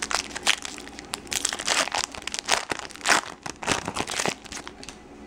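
Foil wrapper of a Bowman baseball card pack being torn open and crinkled in the hands: a dense run of sharp crackles that thins out near the end.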